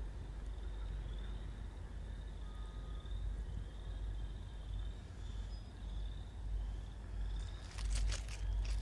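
A high, steady insect trill over a low rumble of wind on the microphone. Near the end, footsteps and rustling start up as someone walks through grass.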